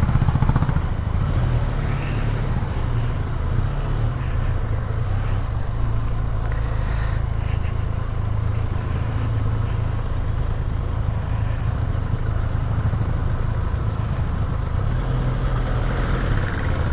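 Benelli TRK 502's parallel-twin engine running steadily as the motorcycle is ridden, with a brief high-pitched sound about seven seconds in.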